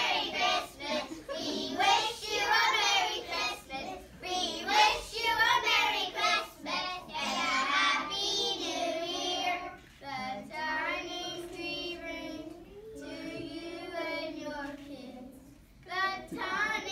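A class of young children singing together in unison; from about ten seconds in the notes are held longer, with a short break near the end before the singing picks up again.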